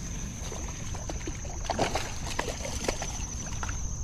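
A hooked bowfin being fought in at the bank on rod and reel: water splashing and sloshing with short knocks and rustles, most of them between about one and a half and three seconds in, over a steady high-pitched whine.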